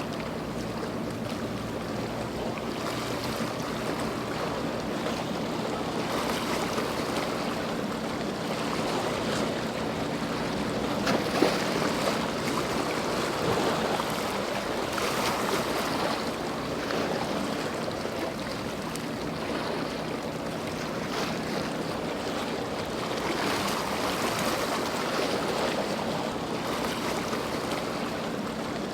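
Boat engines running steadily over loud waves and water rush, with wind on the microphone and a single sharp knock about eleven seconds in.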